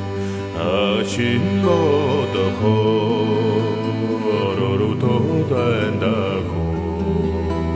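Background music: chanted vocals over a steady low drone.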